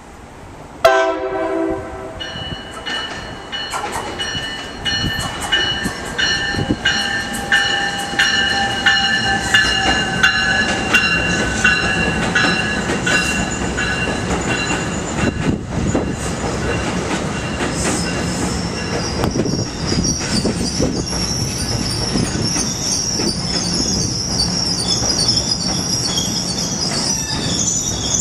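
NJ Transit Multilevel commuter train coming in and passing: a short horn blast about a second in, then wheels clicking over the rail joints under a steady whine and rumble. A high-pitched wheel squeal joins about two-thirds of the way through.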